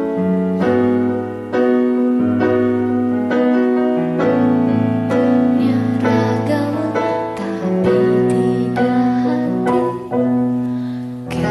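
Instrumental karaoke backing track playing its outro: sustained piano chords with notes struck at a steady pace, and no singing.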